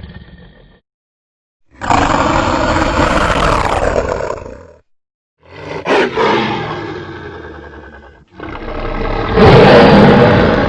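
Kaiju monster roar sound effects made from low-pitched opossum growls with occasional big-cat and wolf snarls mixed in: three long roars of about three seconds each, separated by short silences, the last one the loudest.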